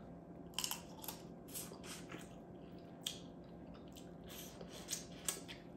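Close-miked eating of a saucy vegan seafood boil: chewing with short wet mouth clicks and smacks, a couple each second.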